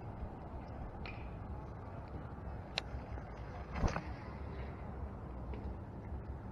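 Steady low rumble of wind on the microphone, with a few small clicks and one louder knock about four seconds in from handling a baitcasting rod and reel.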